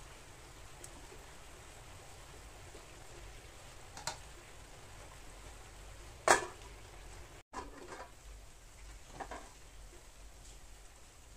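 A stainless steel lid clanks down onto a stainless frying pan about six seconds in, the loudest sound here, over a faint steady sizzle of a cabbage-and-egg omelette frying. A lighter metal tap comes a couple of seconds before it, and softer clinks follow near the end.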